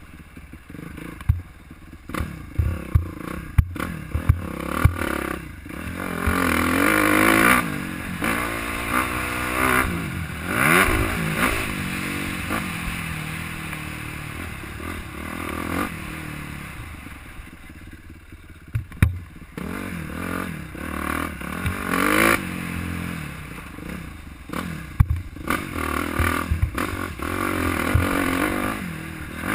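Suzuki dirt bike's engine revving hard and easing off again and again, its pitch climbing and dropping as it rides a motocross track. Sharp knocks and clatter come from the bumps along the way.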